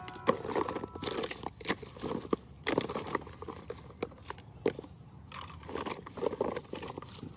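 Cardboard phone boxes being rummaged through and handled by hand in a pile: irregular light knocks and taps as boxes are picked up and set down, with papery rustling between them.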